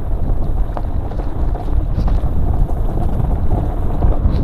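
Wind buffeting the microphone of a camera carried down a rocky trail on a downhill mountain bike, a loud steady low rumble, with scattered light clicks and knocks of the bike rattling over rocks.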